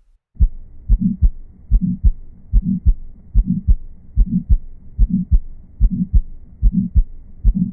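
Recorded heart sounds with an ejection systolic murmur: about nine beats at roughly 70 a minute. Each beat has a sharp first heart sound, a short low swell of murmur between the two sounds, then the second heart sound. This murmur is typically found in aortic stenosis and pulmonary stenosis.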